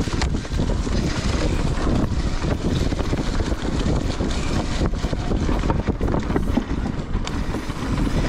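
Wind buffeting the camera microphone while riding a Giant Reign E+ electric mountain bike over a dirt trail, with a steady run of small knocks and rattles from the tyres and bike over the rough ground.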